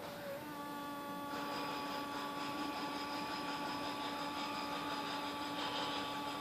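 Hoverfly hovering, its wings making a steady buzz that drops to a lower pitch about half a second in and then holds.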